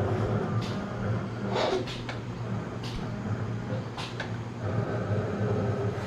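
Eclipse 3240 computerized mat cutter running a cut: a steady motor hum with several sharp clicks scattered through it.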